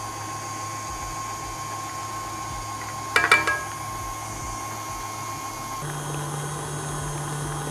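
Tilt-head stand mixer running steadily as it beats a cookie dough base, its motor stepping up to a higher pitch about six seconds in as the speed is raised. A brief clink sounds about three seconds in.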